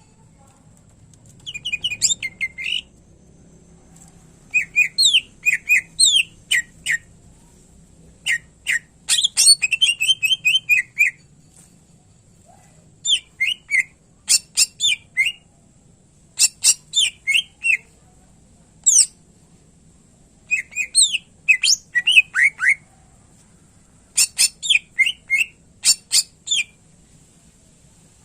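Greater green leafbird (cucak ijo) singing in energetic bursts of rapid, sharp chirping and whistled notes, each phrase a second or two long with short pauses between, its song mixing in mimicked calls of other birds.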